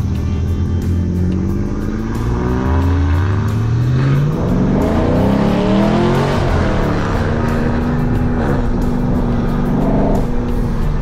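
Chevrolet Camaro SS's 6.2-litre V8 through a Borla cat-back exhaust, heard from inside the cabin as the car accelerates. The revs climb, drop at a gear change about four seconds in, climb again, then settle to a steady cruise.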